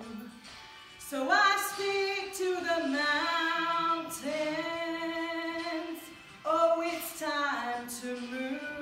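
A woman singing a worship song into a microphone, holding long notes, along with a backing track played from her phone. The singing drops out briefly for about half a second past the middle, then comes back.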